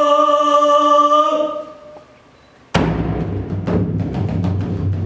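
A long held pitched note fades out about a second and a half in; after a short pause, taiko drums come in with a sudden loud stroke about 2.7 seconds in and go on in fast, dense strokes.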